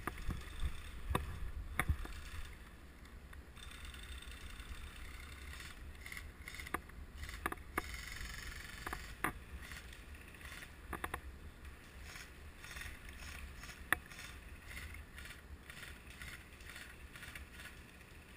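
Low wind rumble on a body-worn camera microphone with the rustle of a player moving, broken by scattered sharp clicks.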